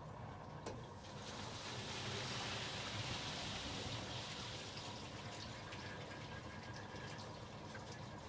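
Whirlpool 5 kg washing machine near the end of its final spin: a low hum under a rush of water draining out, which swells about a second in and eases off toward the end.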